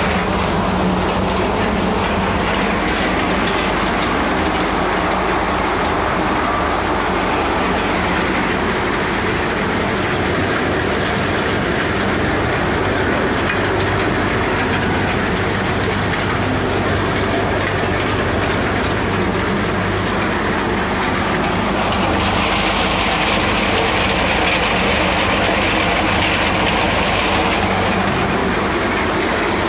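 Glass bottle crushing machine running steadily, breaking bottles into fragments with a continuous, dense rattle. For several seconds in the second half a brighter hiss rises over it.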